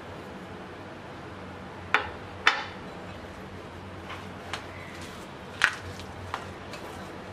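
Several sharp clinks of a utensil against a glass mixing bowl while bread crumbs are tipped in and stirred, the two loudest about two and a half and five and a half seconds in. A low steady hum runs underneath.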